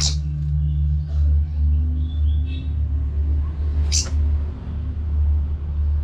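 A steady low hum with two sharp knocks, one at the start and one about four seconds in. The knocks come from an orange-headed thrush fluttering against the bars of its cage.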